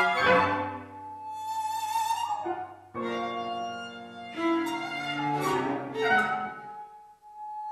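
Contemporary chamber ensemble of daegeum, clarinet, trumpet, piano, violin and cello playing held chords over a low sustained bass. A new chord enters about three seconds in, further accents follow, and the sound fades near the end.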